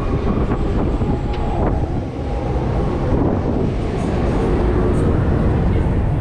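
Wind rushing over an onboard camera's microphone as a Funtime Tornado ride vehicle swings and flips, heard as a steady low rumble.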